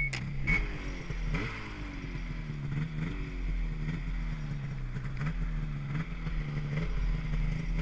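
Two-stroke snowmobile engine with an RKTek 827 big-bore kit, being blipped on the throttle. The pitch jumps up sharply and then sags, over and over, about every second and a half.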